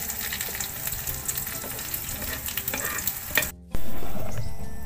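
Squash and egg omelette sizzling as it fries in oil in a pan, with a metal spoon scraping and tapping against the pan. The sizzle cuts off suddenly about three and a half seconds in and is replaced by a louder, different sound that slowly fades.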